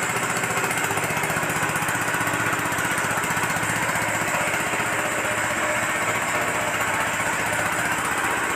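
Small Honda stationary engine running steadily at a constant, even speed, driving a fully loaded horizontal feed mixer through a belt and worm gearbox.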